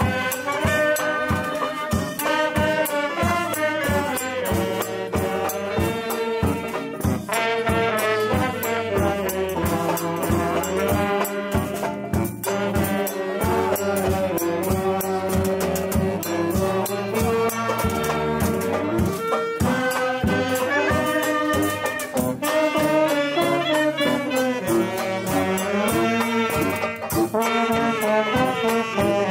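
Small street band playing a lively tune: trombone and saxophone carry the melody over a strummed banjo keeping a steady beat.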